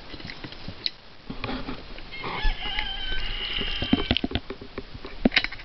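A rooster crowing in a long drawn-out call, over a run of sharp knocks and clatter in the second half.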